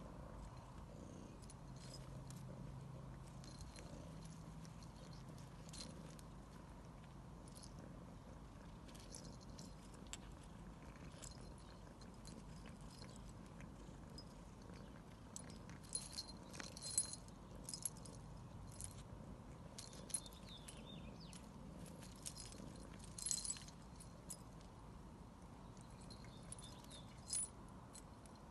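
A cat eating a mouse it has caught: faint chewing with a low steady rumble in the first several seconds, then clusters of sharp clicks and crunches from about halfway on.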